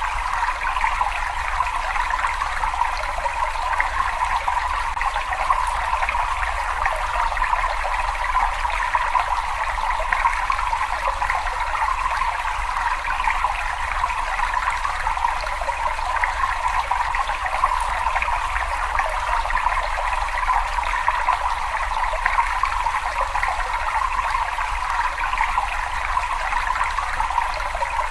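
Water running and trickling steadily, an even rushing splash with no pauses or changes.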